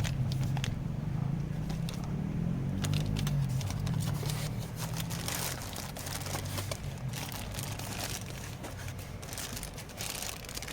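Packaging being handled during unboxing: crinkling and rustling with irregular clicks and scrapes. A low hum fades out over the first few seconds.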